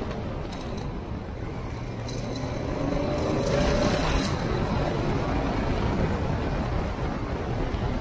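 Honda Africa Twin parallel-twin motorcycle riding along, its engine running under a steady rush of wind and road noise on the mounted camera's microphone, getting louder about three seconds in.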